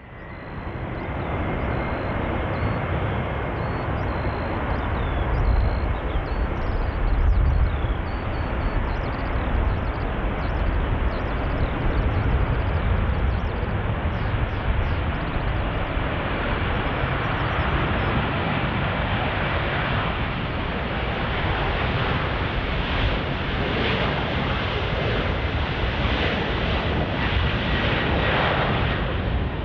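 Jet airliner engines: a loud, continuous rush with a thin steady whine, growing brighter in the second half.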